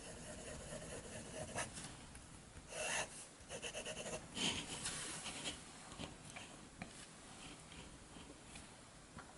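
Medium steel nib of a fountain pen scratching faintly across Clairefontaine paper as it draws loops and long lines, with a few louder strokes in the first half.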